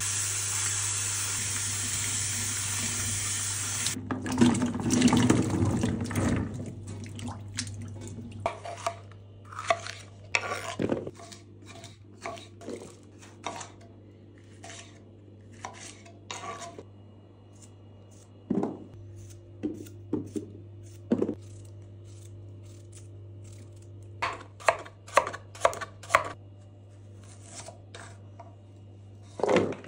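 Water running steadily for about four seconds, then a kitchen knife cutting green peppers and carrots on a wooden cutting board: irregular knocks of the blade striking the board, quickest near the end. A low steady hum runs underneath.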